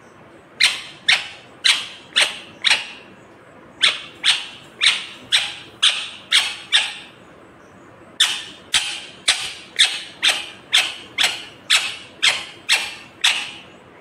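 Indian ringneck parrot giving loud, sharp calls in three runs, about two a second: five, then seven, then about eleven, with short pauses between runs.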